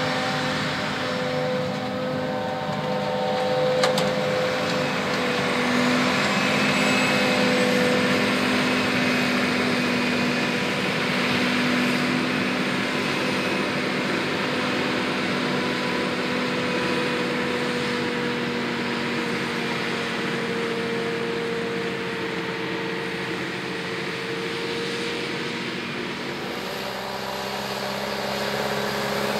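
Large diesel engines of a self-propelled forage harvester and a tractor working in a field: a continuous heavy drone whose pitch drifts slowly up and down. Near the end the sound changes and grows louder as a Fendt tractor pulling a trailer comes closer.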